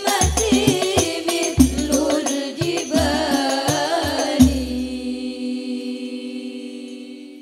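Women singing a banjari sholawat together over hadrah frame drums with deep drum strokes, ending on a last drum stroke about four and a half seconds in and a long held final note that fades away.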